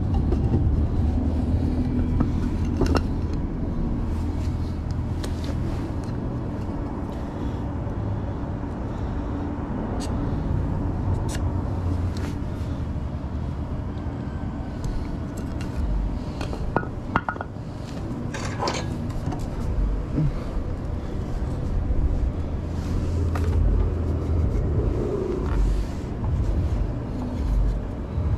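A steady low rumble, with a few sharp knocks and clicks of boards and tools being handled.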